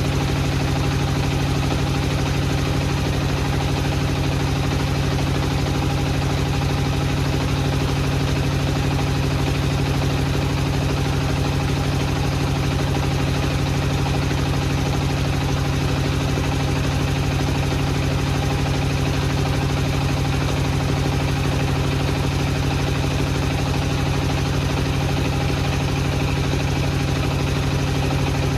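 Wood-processing machinery running steadily with an even, unchanging hum and no cutting or impacts.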